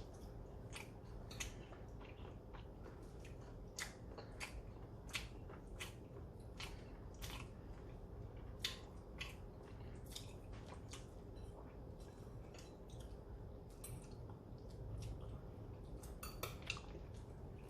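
Close-miked eating sounds: chewing with short, sharp smacks and clicks at irregular intervals, over a low steady hum.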